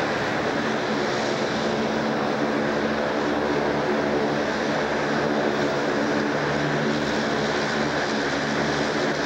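Airliner engines running steadily at taxi power: a constant rush of noise with several steady humming tones that neither rise nor fall.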